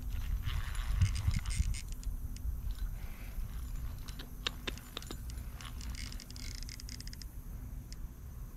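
Fishing reel clicking and rattling as it is worked against a hooked channel catfish pulling on a bent rod, with a run of sharp ticks about four to five seconds in.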